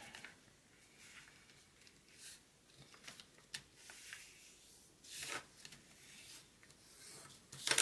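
A sheet of paper rustling and sliding as origami creases are folded and pressed flat, then rubbed down with a wooden folding tool: soft scattered swishes, a longer one about five seconds in, and a louder rustle at the very end.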